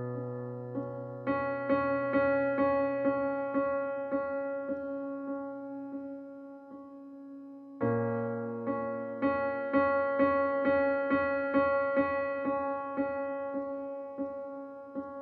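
Background music on a keyboard piano: held chords under a run of repeated notes at about three a second, with a new chord struck about halfway through.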